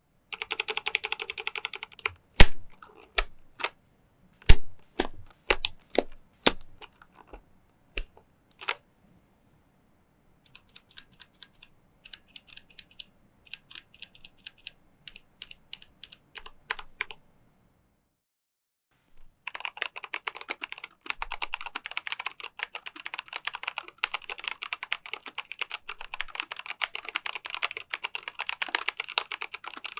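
Micronics WARP WK3 tenkeyless mechanical keyboard with Manic brown switches being typed on. A quick burst of typing gives way to a string of separate, louder single key strikes, then lighter typing in short runs. After a pause of over a second, fast continuous typing starts about twenty seconds in.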